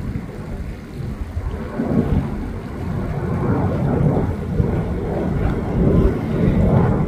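Distant jet engines of a climbing Virgin Australia Boeing 737: a low, uneven rumble that dips about a second in and then builds again, mixed with wind on the microphone.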